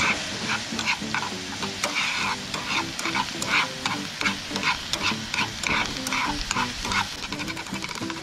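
Chopped green onions and garlic sizzling in a non-stick frying pan, stirred with metal tongs that scrape and click against the pan about two to three times a second.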